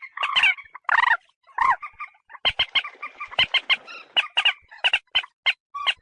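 Common moorhen calling: a rapid, irregular run of short, harsh clucking notes with brief pauses between the bursts.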